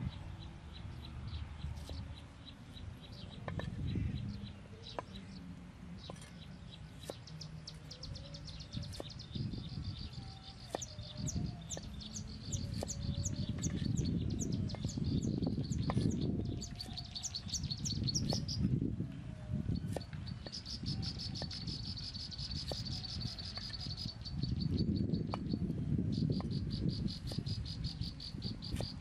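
Cleaver chopping on a round wooden chopping board in short, sharp knocks at an uneven pace. A high, rapid chirping in repeating runs joins about a quarter of the way in, over a low rumble that swells twice.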